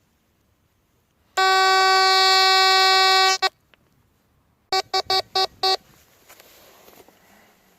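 Tesoro Mojave metal detector's buzzy audio tone: one long tone of about two seconds, then five quick beeps of the same pitch.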